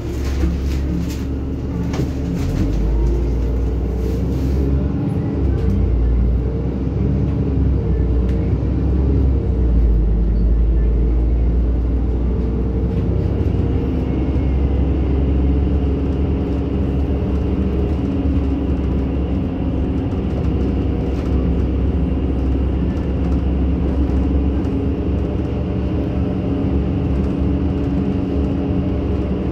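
NefAZ-5299 city bus under way, heard from inside the passenger cabin: a steady low engine and road rumble with a few light rattles early on. A faint high whine joins about halfway through.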